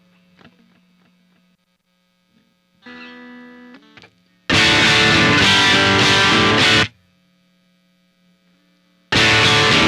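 Electric guitar played through distortion, heard through a webcam microphone. A quieter chord rings about three seconds in, then two loud distorted strummed passages come, one about halfway through and one starting near the end, with a steady amplifier hum in the gaps.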